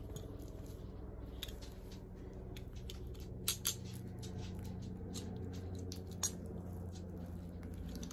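Scissors snipping and plastic shrink-wrap crinkling as a sealed music album is cut open: scattered short clicks and crackles, with a few sharper snaps near the middle, over a steady low hum.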